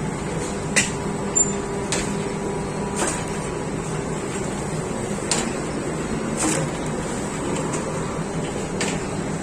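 Steady hum of bakery machinery, with about seven short sharp knocks or clatters at irregular intervals.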